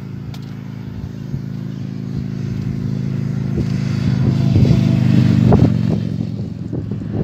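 Motorcycle engine passing on a highway at a steady engine note. It grows louder to a peak about five seconds in, then fades.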